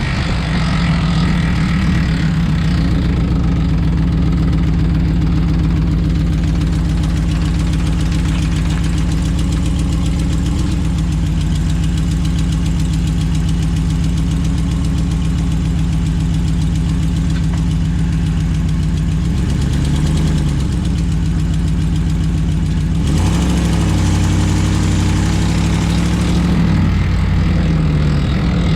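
2011 Ram 1500 pickup's engine running steadily with a rattling noise, with brief slight shifts in pitch about two-thirds of the way through.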